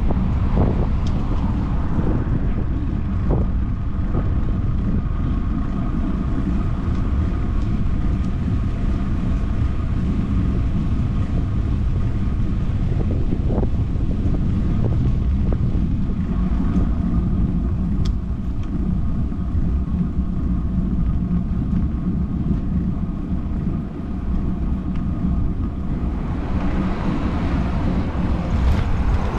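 A motorcycle being ridden at a steady speed: the engine running under heavy wind noise on the microphone, the wind rush growing louder near the end.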